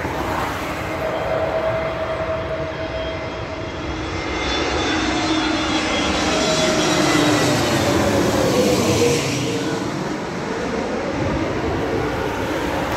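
Twin-engine jet airliner passing low overhead on final approach to land. Its engine noise swells to a peak a little past the middle, with whining tones sliding down in pitch as it goes by, then eases off as it heads away towards the runway.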